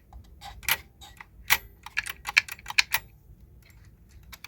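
A string of sharp clicks and small knocks from the works of an old cuckoo clock being handled while it is reset, bunched most closely about two to three seconds in.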